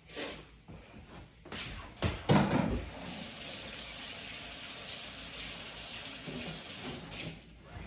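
A few knocks and clatters, then water running steadily from a kitchen tap into a sink, shut off near the end.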